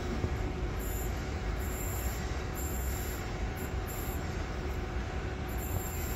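Trenitalia Frecciarossa 1000 (ETR 400) high-speed electric train rolling slowly through a station, a steady low rumble with a faint hum. A very high wheel squeal comes and goes several times.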